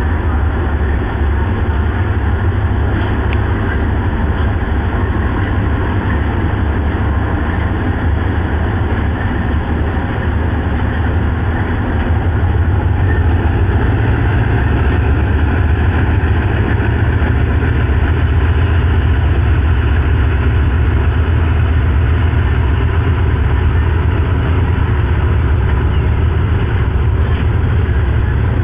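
Diesel locomotive engine running with a steady low drone, which grows louder about twelve seconds in.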